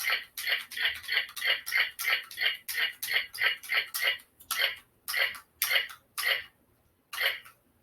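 Electronic toy blaster playing its firing sound effect: a fast train of short, even electronic shots, about three a second, slowing about four seconds in and stopping, with one more shot near the end.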